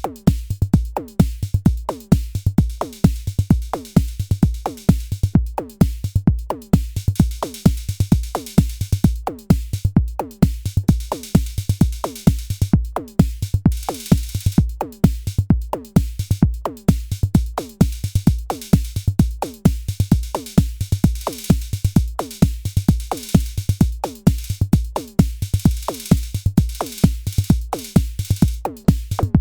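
Arturia DrumBrute Impact analog drum machine playing a pattern: a steady deep kick about twice a second under fast repeated drum hits that drop in pitch, with stretches of cymbal hiss. The roller function is rolling a single instrument over the beat.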